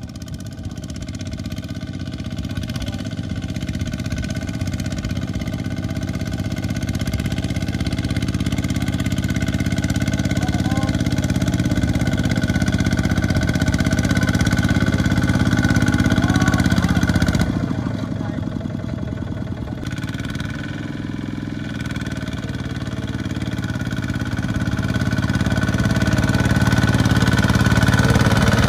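Single-cylinder diesel engine of a two-wheel walking tractor running under load as it hauls a trailer of rice sacks through deep mud. It grows louder as the tractor approaches, drops back briefly a little past halfway, then rises again.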